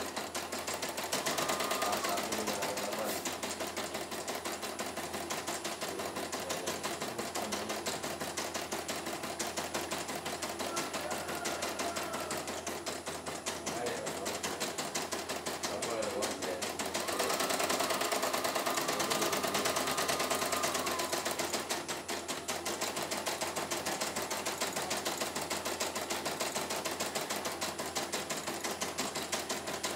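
CNY E900 computerised embroidery machine stitching a design: a steady run of rapid needle strokes, with a faint higher whine coming and going a few times. This is a test run after repair of a machine that had been dead, and it runs smoothly without stalling or thread breaks.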